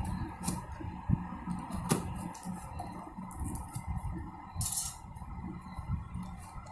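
A tripod's retail box and packaging being handled and opened by hand: scattered clicks and knocks with dull handling thuds, and a short rasp just under five seconds in.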